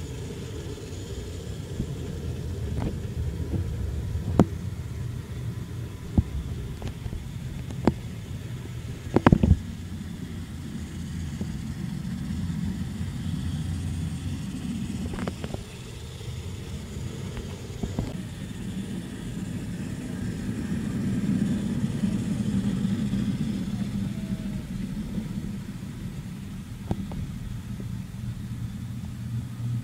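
Model trains running on their track: a steady low rumble of motors and wheels on the rails, with several sharp clicks scattered through it. The rumble swells for a few seconds past the two-thirds mark.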